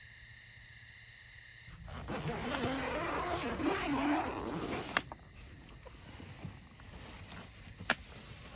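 Outdoor night ambience of insects chirping steadily. About two seconds in, a louder rush of noise with wavering low tones lasts some three seconds, and a couple of sharp clicks follow later.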